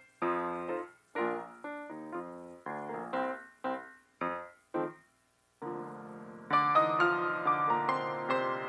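Solo piano playing a run of short chords, each struck and cut off as it fades. After a brief pause about five seconds in, fuller held chords follow and grow louder.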